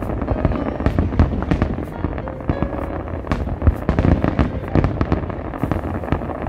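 Aerial fireworks bursting in quick succession: many overlapping sharp pops and crackles, several a second, over a steady low rumble.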